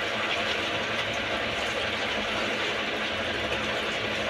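Steady hiss of background noise with a low rumble underneath, unchanging throughout.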